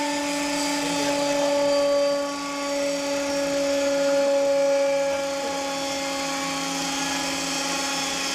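KMEC tubular centrifuge running at speed during a test run: a steady machine whine over a rushing hiss.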